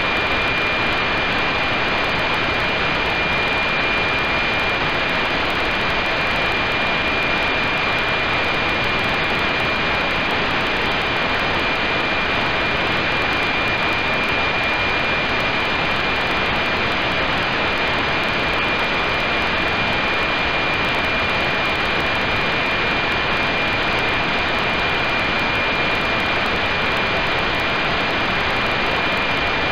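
NOAA-19 weather satellite APT signal heard through a radio receiver: a steady high tone, the image subcarrier, buried in loud even static hiss.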